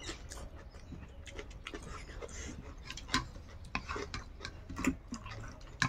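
Close-miked eating: irregular wet chewing and lip-smacking clicks as rice and side dishes are eaten by hand.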